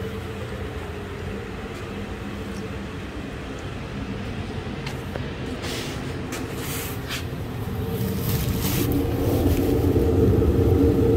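The 2005 Mercury Montego's 3.0L V6 idling steadily, heard at the exhaust. It grows louder over the last few seconds as the tailpipe comes close. A few brief scuffs come about halfway through.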